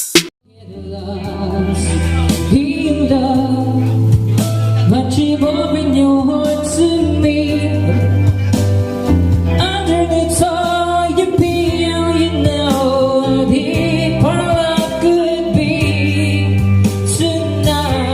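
A song with singing and a heavy bass line played through a PA speaker and subwoofer under test. It starts with a click and fades up over about the first second.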